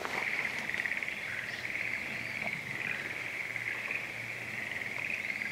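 A frog-like animal call: a fast, high-pitched trill that carries on without a break.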